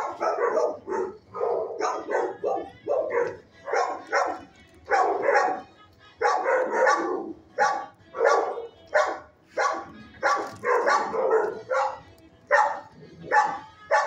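Several shelter dogs in neighbouring kennels barking over and over, about two barks a second, with no let-up.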